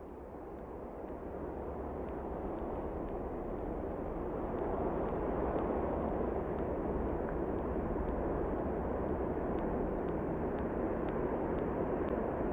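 Steady wind noise that swells up over the first few seconds and then holds, with faint high ticks about twice a second.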